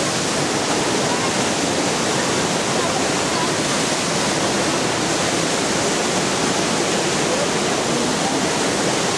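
Waterfall pouring: a steady, unbroken roar of rushing water.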